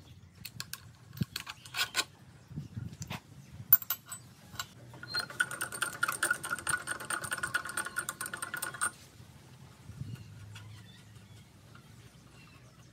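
Small metal parts clinking and tapping as they are handled, then a small machine runs for about four seconds with a steady whirr and cuts off suddenly.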